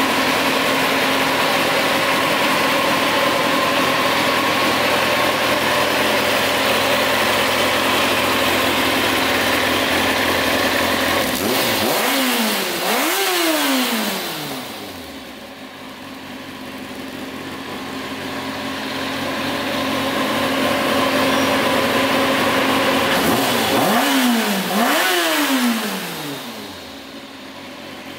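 Kawasaki ZX-6R's inline-four engine revving through an aftermarket stainless exhaust. It is held at steady high revs for about twelve seconds, then the revs fall away toward idle. They build up again slowly and fall away once more near the end.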